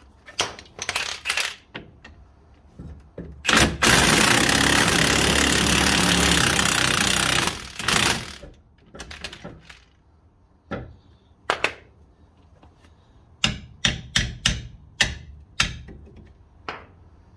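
Impact gun hammering on seized, rust-bound hub bolts in one burst of about four seconds. Sharp metallic clanks and knocks of tools on the hub come before and after it.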